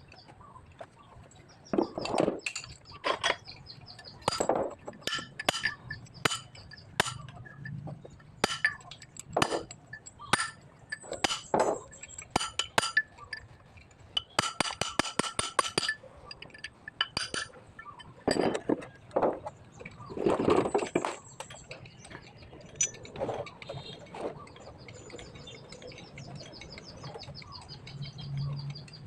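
Metal parts and hand tools clinking and knocking on and off, with a quick run of clicks about halfway through.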